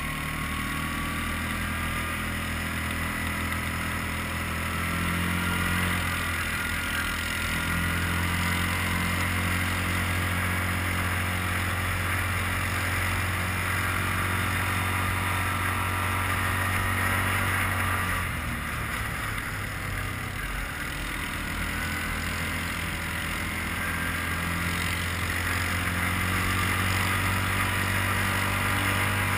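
Quad bike (ATV) engine running steadily as it is ridden along, easing off briefly about two-thirds of the way through and then picking up again.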